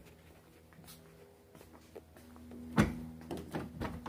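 Rear door of a Honda HR-V being swung shut on a plywood bed platform: a dull thump nearly three seconds in, a few light knocks, then the door closing with a loud thump at the very end.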